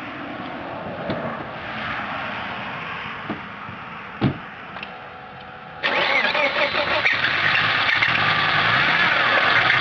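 1995 Volvo 850 T5R's turbocharged 2.3-litre five-cylinder engine running with a horrendous noise, the sign of an almost certainly spun rod bearing. The sound jumps much louder about six seconds in.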